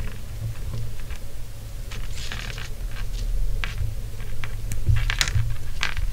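Scattered small clicks and rustles of fingers handling fishing tackle as a rubber bobber stopper is slid from its wire threader onto monofilament line, over a steady low hum.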